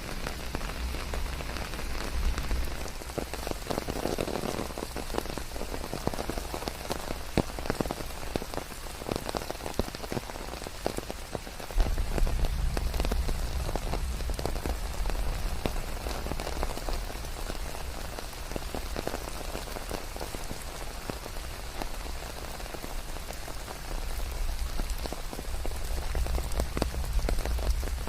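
Steady rain falling, a dense patter of drops. A deep low rumble under it steps up suddenly about twelve seconds in.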